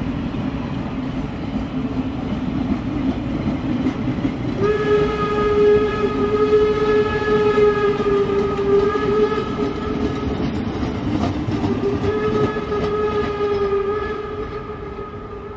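Steam locomotive whistle sounding two long blasts while a passenger train's coaches rumble and clatter past on the rails. The rumble fades near the end as the last coach goes by.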